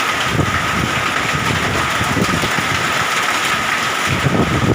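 Storm of heavy rain and hail driven by strong wind: a steady dense hiss, with wind buffeting the microphone in uneven low gusts.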